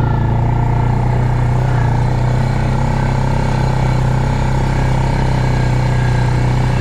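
Quad bike engine running steadily under way, at an even, unchanging pitch.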